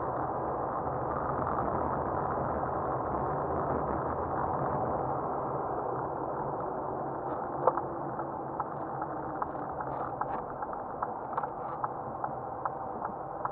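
Car cabin with steady engine and tyre noise while driving on a snowy road. A little past halfway, a turn-signal indicator starts ticking evenly, about two ticks a second.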